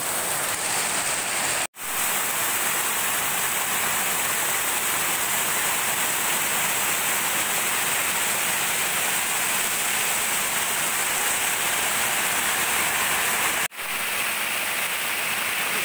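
Small waterfall pouring over a mossy stone wall and splashing onto people bathing under it: a steady, loud rush of falling water. The sound cuts out for an instant twice, about two seconds in and near the end.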